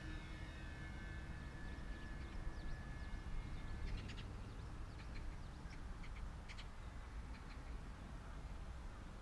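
A model plane's motor whine fading away in the first second or so, over a steady low rumble of wind. From about two seconds in come scattered short, high bird chirps.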